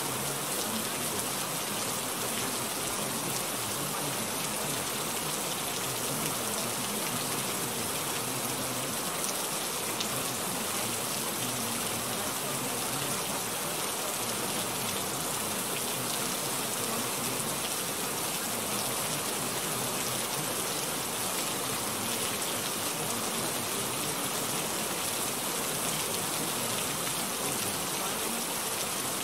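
A steady, even hiss of rain-like noise that does not change, serving as the masking bed for subliminal spoken affirmations, which are not audible.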